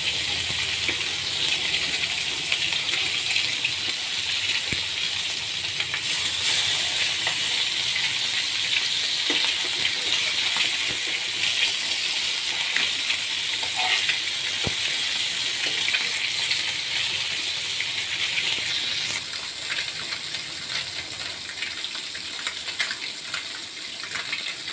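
Fish steaks shallow-frying in hot oil in a nonstick pan: a steady sizzle with crackling spatter, easing a little over the last few seconds. A few light clicks of the metal spatula against the pan.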